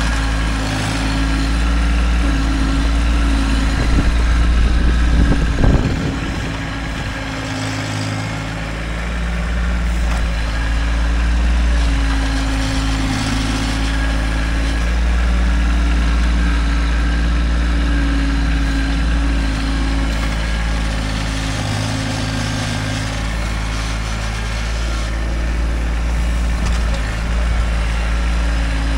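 Kubota tractor's diesel engine running steadily as it works dirt, its hum swelling and easing a little, with a brief clatter about five and a half seconds in.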